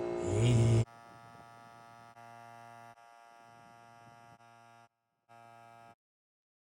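A faint, steady electrical hum, broken off by several abrupt cuts. It follows a louder burst of steady tones that stops suddenly about a second in.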